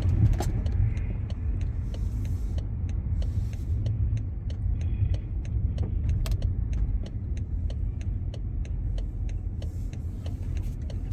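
Car driving, heard from inside the cabin: a steady low road and engine rumble. Through it runs an even ticking, about three ticks a second.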